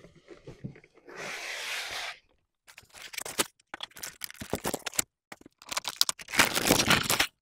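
Foam packing end caps scraping against a cardboard box as a boxed electronics unit is lifted out. This is followed by a plastic bag crinkling and rustling as the foam is pulled off and the bag is slid off the unit, loudest near the end.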